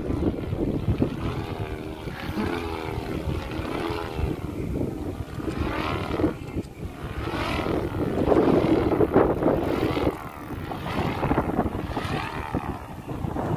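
Whirring hum from a looping stunt kite, swelling and sliding up and down in pitch every second or two as it swoops, over wind rumble on the microphone.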